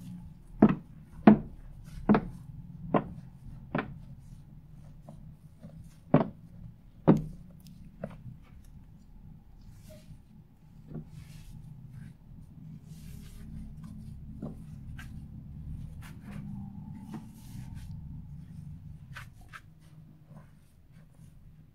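A plastic spatula working a heap of fluffy shaving-foam slime. There are about seven sharp clicks and pops in the first seven seconds, then softer rubbing with a few faint clicks.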